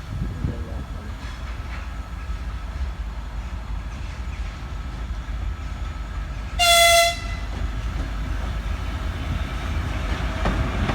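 A train running with a steady low rumble, and one short, loud, high-pitched horn toot about two-thirds of the way through.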